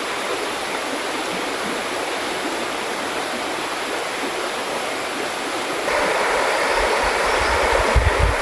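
Mountain river running over rocks, a steady rush of water that grows louder about six seconds in, with some low rumbling near the end.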